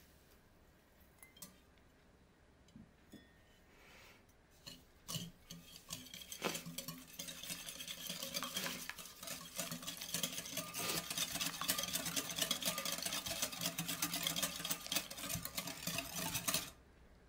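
Wire balloon whisk beating egg and sugar in a glass bowl. A few light taps come first; from about six seconds in it settles into fast, steady whisking, the wires rattling and scraping against the glass, and it stops shortly before the end.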